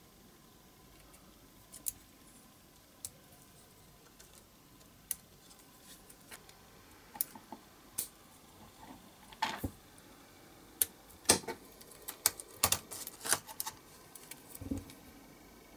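Small hard clicks and taps of a diecast toy car's metal base, wheels and a thin metal tool being handled and fitted together. The clicks are scattered at first, then come in a busier cluster about two-thirds of the way through.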